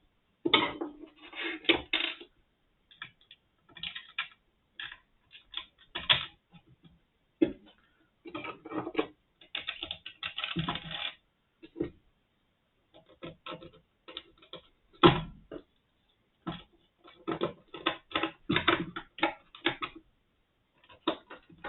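Irregular clicks, taps and rattles of small parts being handled as a Brüel & Kjær 2250 sound level meter's casing is fitted back together, with one louder knock about two-thirds of the way through.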